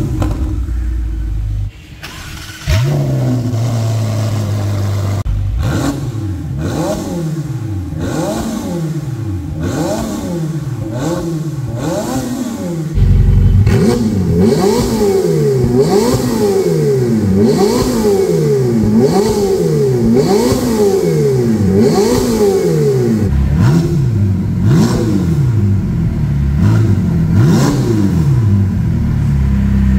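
Ferrari 488 Pista's twin-turbo V8 running through an IPE titanium catback exhaust, with the stock catalytic converters kept. It idles steadily for a few seconds, then is blipped over and over, each rev rising and dropping back about once a second, and grows louder about thirteen seconds in.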